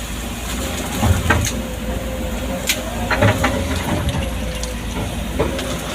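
Excavator's diesel engine running steadily, with a faint steady whine and several sharp knocks and clanks from the machine working.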